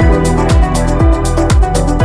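Electronic background music with a steady kick-drum beat, about two beats a second, under sustained synth notes.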